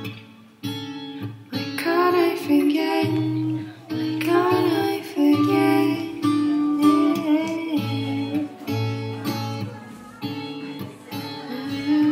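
Background music: a plucked acoustic guitar with a soft singing voice over it.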